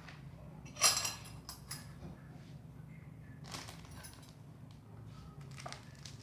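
Kitchenware being handled: a sharp clatter about a second in, then lighter clinks and scrapes, over a steady low hum.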